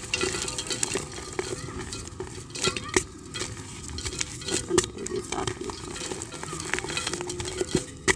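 A hard, dry block of multani mitti (Fuller's earth) crumbled by hand into a terracotta clay pot: irregular crunching and crackling as it breaks, with bits and powder dropping into the pot. A few louder snaps come about three and five seconds in and again near the end.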